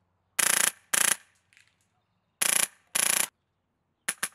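Polarstar HPA-powered Krytac SPR MkII airsoft rifle firing on full auto, set to about 30 rounds a second: four short bursts in two pairs, each a fast rattle of shots. Quick shots start again near the end.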